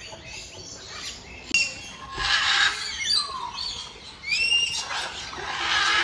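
Parrots calling in an aviary: several separate calls, with a falling call about three seconds in and a pair of rising calls about a second later.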